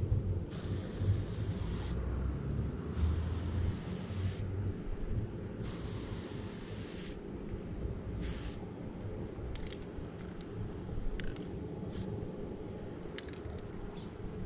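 Aerosol spray-paint can hissing in four separate bursts as black outline strokes are sprayed, the last burst short, over a steady low rumble. After that only a few faint clicks are heard.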